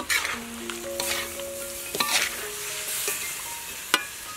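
Metal ladle stirring and scraping sliced bell peppers and meat in a sizzling wok, with sharp clinks against the pan about once a second, the loudest near the end.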